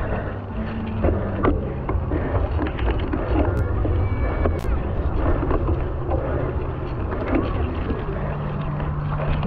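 Cyclocross bike riding over wet, muddy grass: knobby tyres rolling through the mud with constant crackling and rattling from the bike, and wind buffeting the microphone.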